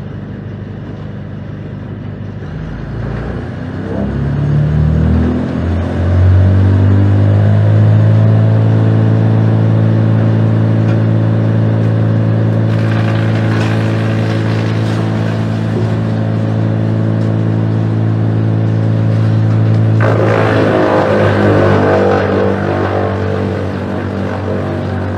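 Rayco RC814 wood chipper's engine revving up from idle to full working speed about four seconds in, then running at a steady high pitch. From about twenty seconds in a louder, rougher crunching noise joins and the engine pitch wavers, typical of brash being fed through and chipped.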